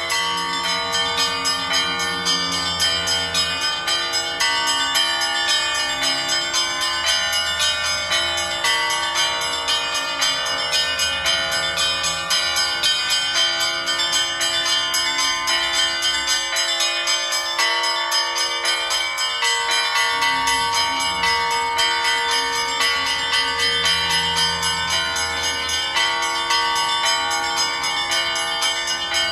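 Bells ringing in a continuous run of strokes with no pause, many tones sounding at once.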